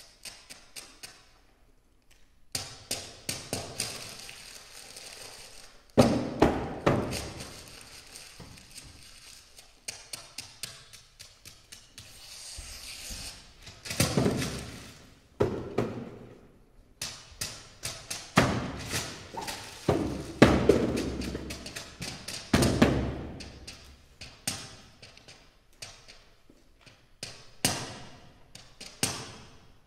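Sheets of paper played as percussion instruments by an ensemble: rapid rhythmic snaps and slaps with swells of rustling and tearing paper, in phrases separated by brief pauses.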